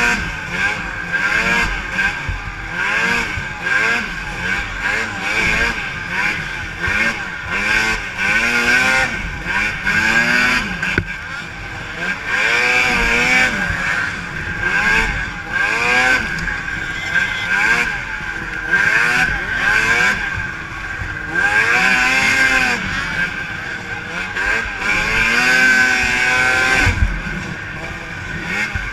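Racing snowmobile engines, several at once, revving up and falling off again and again as the sleds race around the snocross course.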